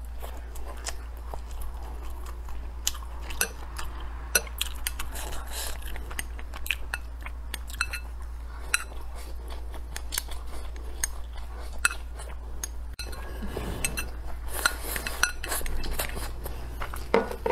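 Close-up eating sounds: chewing rice and braised pork belly, with many short clicks of wooden chopsticks against a ceramic rice bowl. About fourteen seconds in there is a longer rustling, slurping stretch as rice is pushed from the bowl held at the lips.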